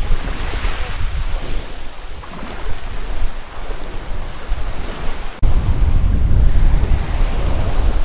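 Small sea waves washing in over a pebble beach, with wind buffeting the microphone as a heavy low rumble. About five seconds in the sound cuts abruptly, and the wind rumble and surf come back louder.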